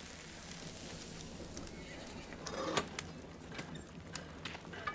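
Faint background ambience from a TV drama's soundtrack, with scattered light knocks and clicks and a brief louder sound about two and a half seconds in.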